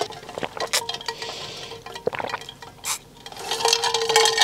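Pre-workout drink being sucked up through a straw from an insulated tumbler, with liquid sipping and slurping noises.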